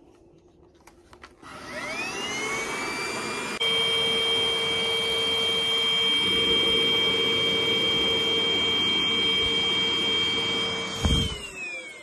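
180 W cordless stick vacuum cleaner starting up, its motor whine rising in pitch, then running steadily with a high whine over the rush of suction. Near the end there is a thump, and the motor winds down with falling pitch.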